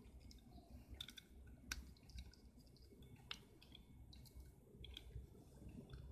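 Faint clicks and plastic handling noises of a rotary selector switch and its wire being handled while it is wired up, with a few sharper clicks scattered through, the loudest just under two seconds in.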